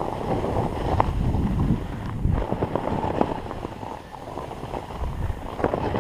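Snowboard sliding and scraping over rippled, wind-packed snow in a continuous rough hiss with scattered scrapes, and wind rushing over the microphone.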